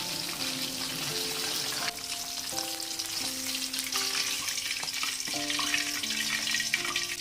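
Food frying in hot oil in a pan, a steady sizzle with a few light clicks, over background music of held melodic notes.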